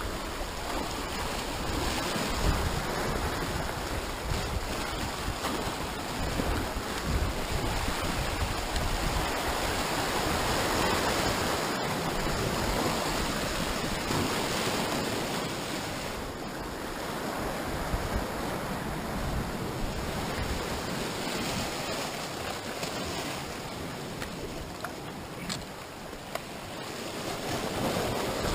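Sea surf washing and breaking over rocks, a steady rushing wash that swells and eases, with some wind on the microphone.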